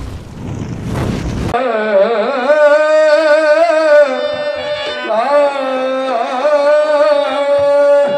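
A loud, noisy rumble that cuts off about a second and a half in, then a singer in Indian devotional style holding long, wavering notes with gliding bends between them.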